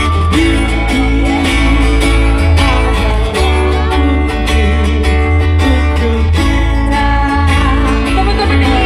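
Live band music: guitar with a heavy, steady bass line.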